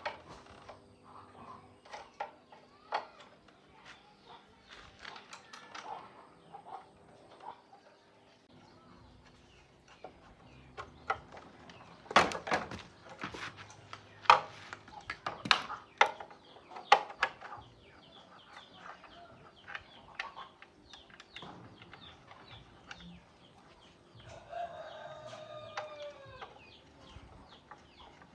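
Chickens clucking, with a rooster crowing once near the end, the crow falling in pitch as it finishes. Over them come scattered sharp knocks and clicks, the loudest in a cluster in the middle.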